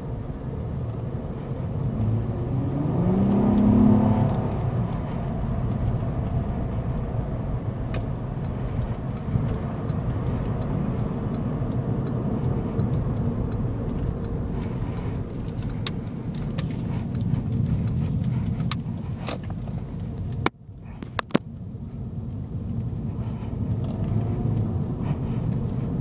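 Inside the cabin of a 2008 Acura TL Type-S: its 3.5-litre V6 under light acceleration, the engine note rising from about two seconds in to a peak near four seconds, over steady road and tyre noise. About twenty seconds in the sound cuts out briefly, with a click.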